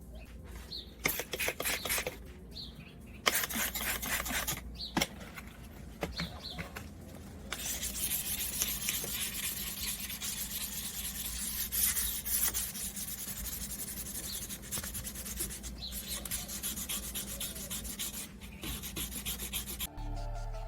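Hand rubbing and scraping on the vehicle's bodywork: a run of short scraping strokes, then a long steady rubbing hiss. Music comes in at the very end.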